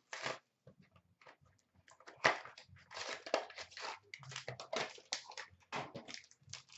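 Hands handling sealed cardboard hockey card boxes and crinkling their packaging: a few clicks, then rustling, crinkling and scraping from about two seconds in.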